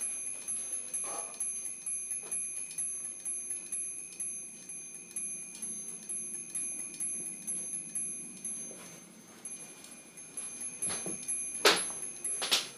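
Brass candle-powered angel chimes turning on the heat of their candles, the rods on the spinning angels striking the small bells in a quick, regular tinkling that rings on between strikes. A few louder strikes come near the end.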